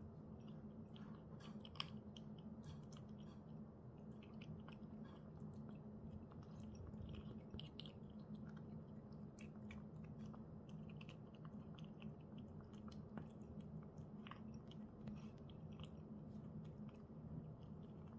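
Cat chewing dry kibble: a steady, irregular run of small crunches and clicks, over a faint low steady hum.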